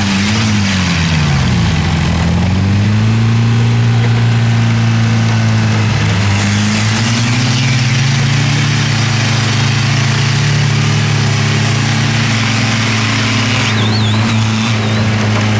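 Off-road SUV's engine revving hard, its wheels spinning in deep mud, with a steady hiss of spraying mud. The revs dip and climb back in the first couple of seconds, then hold high and steady.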